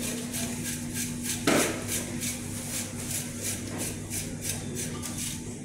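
Indoor shop ambience: a steady low hum with light clinking and rubbing sounds, and one loud clank of hard objects about a second and a half in.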